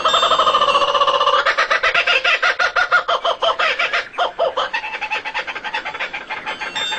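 Bird calls: a fast chattering run of repeated pitched notes, easing off in loudness after about four seconds.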